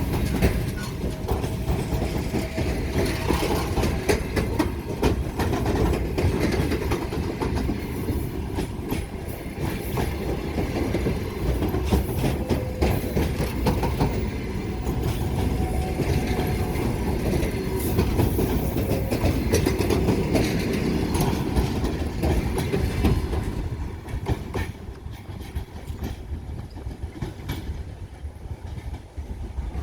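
Passenger train rolling past, its wheels clattering over the rail joints with a steady low rumble. The sound falls away about three-quarters of the way through as the end of the train passes.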